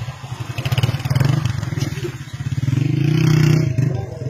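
Low, rumbling roar of a muddy debris flow surging down a rocky stream bed after heavy rain, swelling and fading. Stones clatter and knock in the flow during the first couple of seconds.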